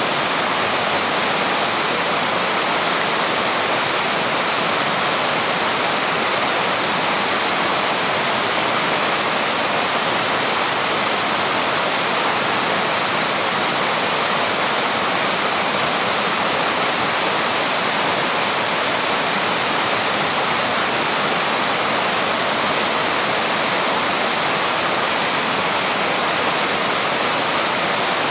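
Small waterfall with water pouring and rushing over rocks in a steady, even roar of white noise, unchanging throughout.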